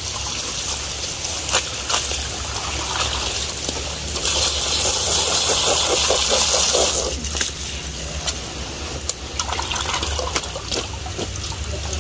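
Water running and trickling through a woven bamboo tray of freshly picked wild oyster mushrooms into a metal basin as they are rinsed, with small splashes. About four seconds in the flow grows to a louder rush for around three seconds, then drops back to a trickle.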